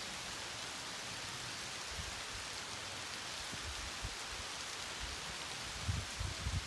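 Steady, even hiss of noise, with a few short low thumps near the end.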